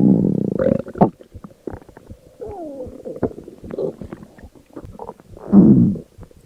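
A person's stomach growling. A long, loud, low groan comes first, then a run of small gurgles and pops with a squeaky gurgle sliding down in pitch, and another loud groan near the end.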